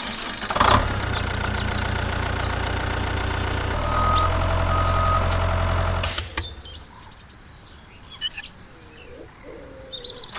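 A vehicle engine running steadily, louder from about 4 s, with two short beeps, then cutting off about 6 s in. Birds chirp faintly in the quieter stretch that follows.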